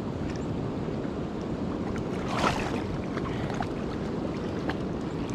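Steady rush of flowing river water, with a brief swishing noise about two and a half seconds in.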